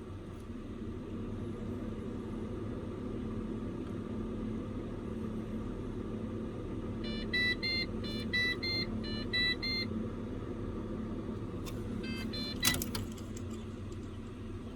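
A run of short electronic beeps in two alternating pitches about seven seconds in, and another brief cluster of beeps with a click a few seconds later, over a steady low hum.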